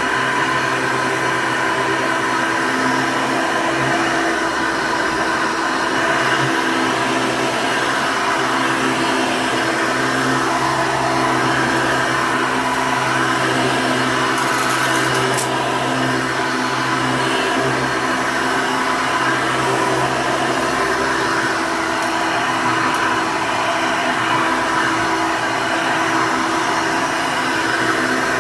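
Hoover Elite II upright vacuum cleaner running steadily, its motor and fan giving a constant hum with a noisy rush of air. A short high hiss comes about halfway through.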